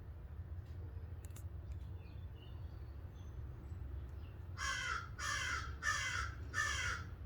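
A crow cawing four times in a quick, even series, each caw about half a second long, starting a little past halfway in. A steady low rumble runs underneath.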